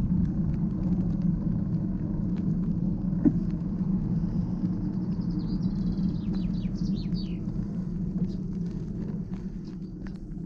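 Steady low rumble of a bicycle ride recorded on a GoPro: tyres on an asphalt path and wind on the camera's microphone, easing a little near the end as the bike slows. A few short high chirps come in about halfway through, and there is a single sharp click a little before that.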